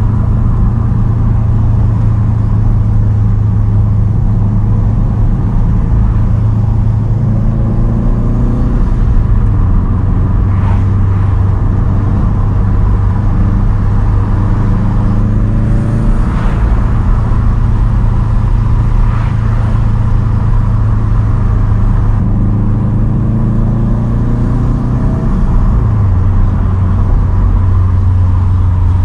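2010 Subaru WRX STI's turbocharged 2.5-litre flat-four running through a Tomei titanium single straight-pipe exhaust while cruising, a loud steady drone. The engine note climbs twice, about a third of the way in and again near the end, then drops back.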